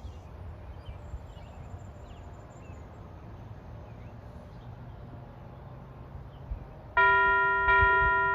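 Faint low background noise, then about seven seconds in church bells begin chiming a tune: two loud struck notes about three-quarters of a second apart, each ringing on.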